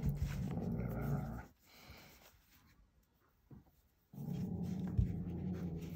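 A dog vocalizing in low, drawn-out stretches. It stops for a couple of seconds partway through, then starts again.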